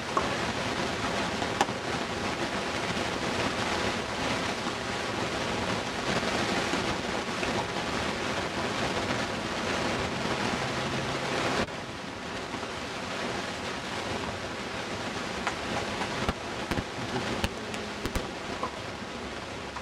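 Steady, even hiss of wind on an outdoor camcorder microphone, dropping suddenly in level a little over halfway through. Near the end come a few sharp, short taps.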